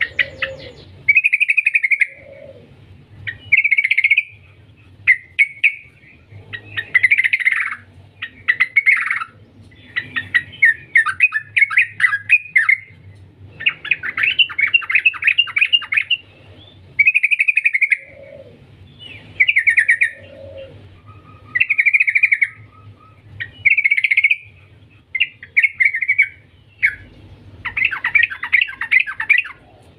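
Trucukan (yellow-vented bulbul) singing: short, bubbly, chattering phrases every second or two, broken by longer rapid stuttering runs.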